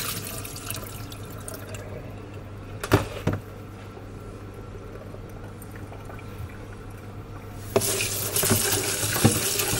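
Water draining out of a tilted plastic basin into a stainless steel sink, dying away over the first two seconds, then two sharp knocks about three seconds in. Just before eight seconds a kitchen tap is turned on and runs steadily into the basin of chicken pieces, starting the second rinse.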